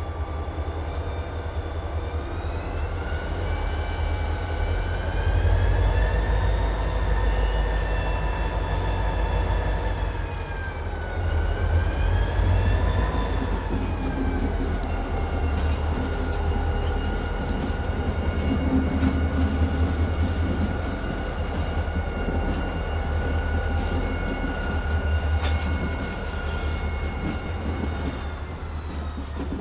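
CSX diesel-electric locomotives running as they roll slowly past: a heavy low engine rumble with a high whine that rises, dips about ten seconds in, climbs again, holds steady, and falls away near the end as the throttle changes.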